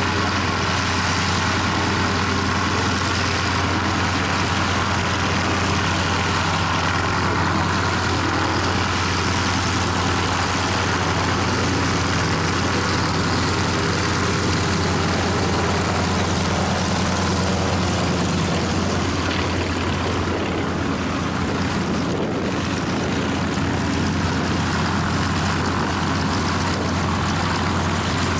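Spartan 7W Executive's Pratt & Whitney R-985 Wasp Junior radial engine and propeller running at a steady low power, with an even, unchanging drone.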